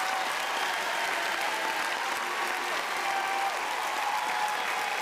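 Crowd applauding, a steady even clapping with faint voices in it.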